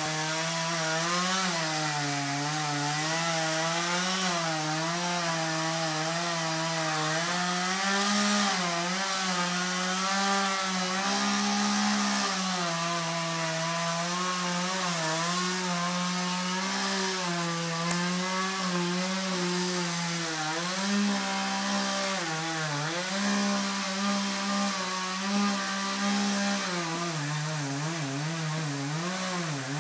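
Two-stroke chainsaw running at high speed through wood, its pitch dipping and climbing again and again as the chain loads up in the cut and frees.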